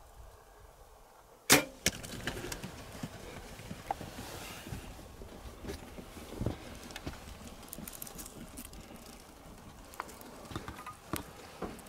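A Bowtech compound bow loosing an arrow about a second and a half in: one sudden, loud, sharp crack of the string release. It is followed by scattered knocks and ticks as the hit waterbuck runs off over gravel.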